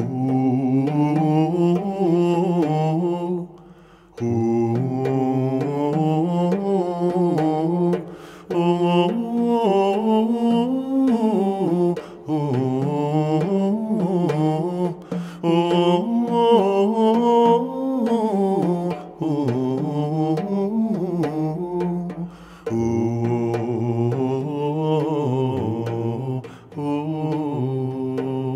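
Background music: a low voice singing a slow melody in phrases of a few seconds, with short breaks between phrases.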